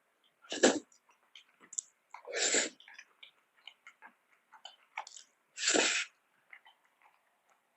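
Close-miked eating sounds: three loud, noisy bursts about two and a half seconds apart, with soft, wet chewing clicks in between.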